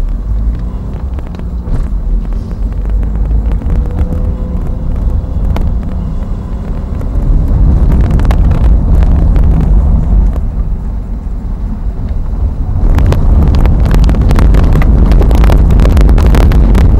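Car driving over a cobblestone street, heard inside the cabin: heavy tyre rumble with the body vibrating. The rumble grows louder partway through, and in the last few seconds it turns into a dense rattle of rapid knocks.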